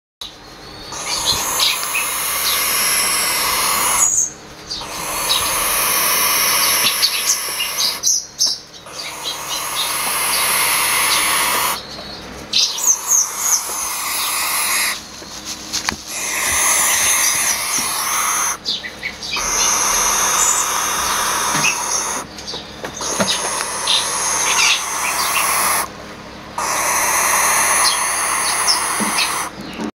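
Barn owl owlets hissing: long rasping hisses, several overlapping, each held for a few seconds and broken by short pauses about every four seconds, with a few short chirps between.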